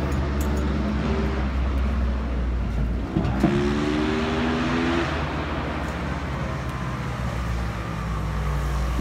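An engine running steadily with a low hum, its pitch rising briefly a little past a third of the way in, with a single knock at about the same moment.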